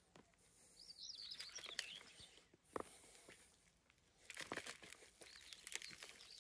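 Quiet rustling and crackling of soil as a hand digs through a plastic bucket of earth and pulls up potato stalks by their roots, with a soft thump about three seconds in. A bird sings briefly about a second in.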